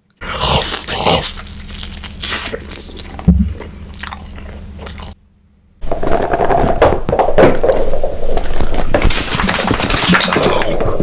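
A person biting and crunching on food, in two stretches split by a brief silence about five seconds in. The second stretch is louder and denser than the first.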